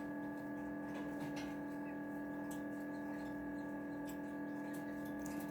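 Steady electrical hum of a chick brooder, with a few faint, irregular ticks from the chick pecking at its egg-yolk feed.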